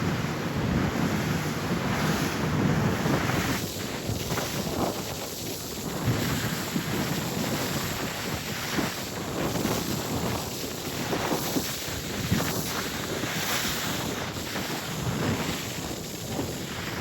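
Wind buffeting the microphone over a steady rush of water from a moving boat.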